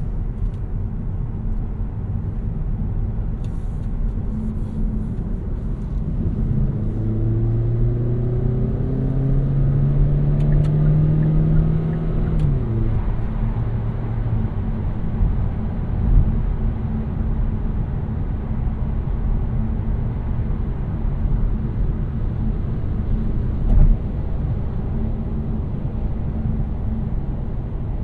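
2018 Kia Niro hybrid driving, with a steady low road and tyre rumble. About a quarter of the way in, the 1.6-litre petrol engine's note rises for about five seconds, then drops sharply near the middle as the gearbox shifts up, and fades out a couple of seconds later. Two brief thumps come later, likely from the road surface.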